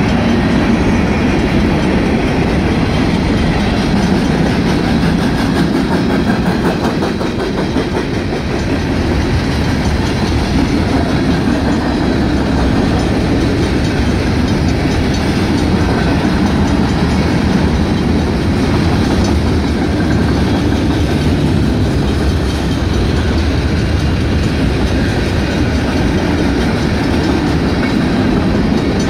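Cars of a Union Pacific manifest freight train rolling steadily past over the crossing, a continuous wheel-on-rail rumble with clickety-clack. The crossing's electronic and mechanical gate bells keep ringing.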